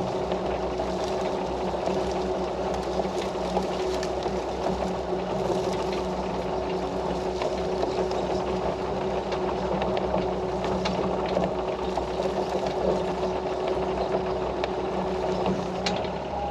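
Sany mini excavator's diesel engine running steadily with an even hum, just started and warming up.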